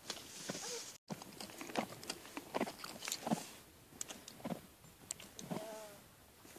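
Irregular crunching footsteps in snow from a Friesian horse's hooves and a person's boots as they walk together.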